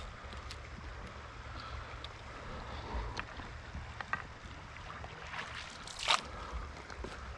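River current flowing and lapping close by, under a steady low rumble, with scattered light ticks and one louder sharp noise about six seconds in.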